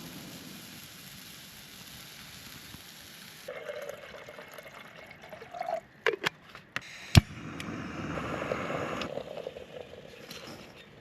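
Steak sizzling in a pan on a camp stove, a steady hiss. About three and a half seconds in the sound changes, with a few sharp clicks and a loud knock about seven seconds in, then more sizzling.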